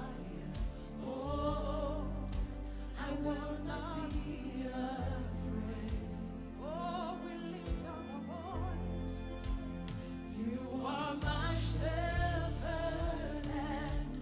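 Gospel song playing: a singer holding and bending notes with vibrato over steady instrumental backing.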